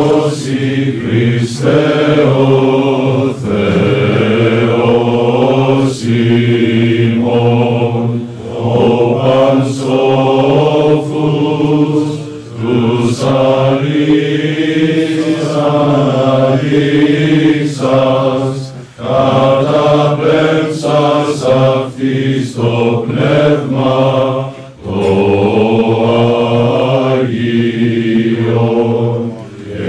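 Male voices singing Orthodox church chant in long, slowly moving phrases over a steady low held note, with brief pauses between phrases.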